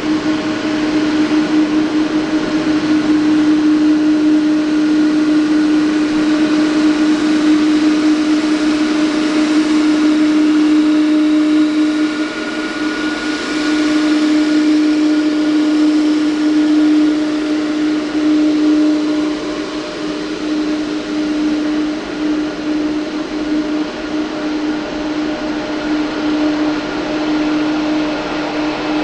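Boeing 777-200ER's twin turbofan engines running at taxi power as the airliner rolls past and turns away: a steady jet drone with a strong low hum note and a fainter higher whine. It eases a little about twelve seconds in.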